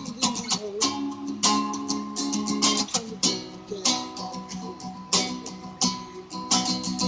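Acoustic guitar strummed in an instrumental passage, chords ringing between repeated strokes.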